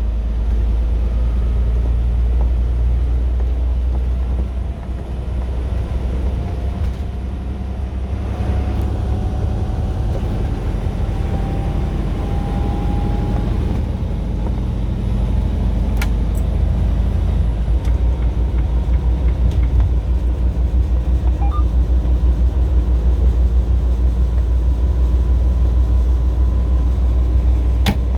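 Low, steady rumble of a 2022 Renegade XL running, with a faint rising whine in the middle. In the second half, a rapid, even pulsing comes into the rumble: the knocking noise the owner is documenting.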